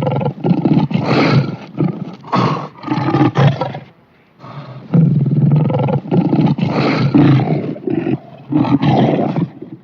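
Designed monster roar for a manticore 'demon bear', blended from lion and bear roars. It comes as two long roaring passages, each broken into several pulses, with a short pause about four seconds in.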